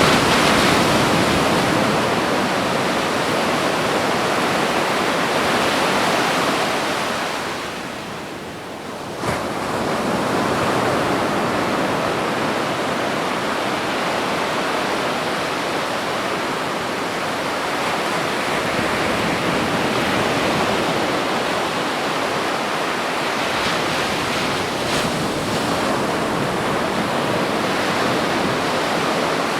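Ocean surf on a beach: a continuous wash of breaking waves. It eases off briefly about a quarter of the way in, then surges back as the next wave breaks.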